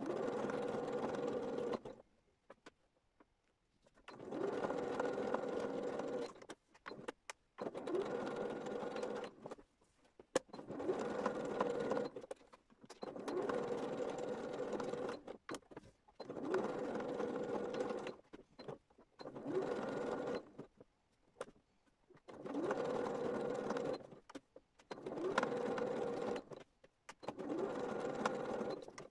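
Electric sewing machine stitching through pieced fabric in short runs of one to two seconds, stopping and starting about a dozen times.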